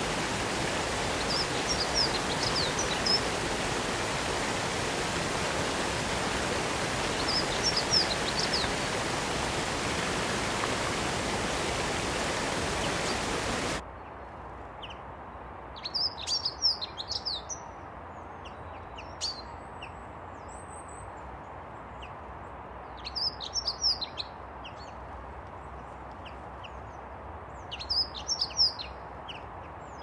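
Waterfall rushing steadily with a small bird chirping in short bursts over it. About 14 seconds in the rushing drops abruptly to a much quieter hiss, leaving the bird's chirps clearer, in brief clusters every few seconds.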